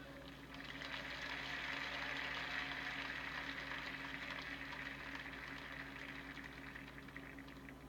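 Congregation applauding, swelling over the first couple of seconds and then slowly dying away, over a steady low hum.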